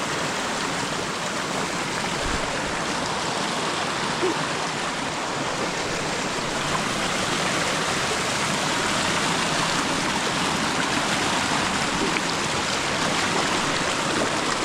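Steady rush of a rocky stream flowing close by.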